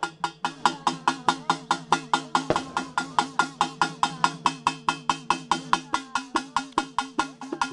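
A small hand-held drum beaten in a fast, even rhythm, about six strokes a second, each stroke ringing with a tone that bends in pitch.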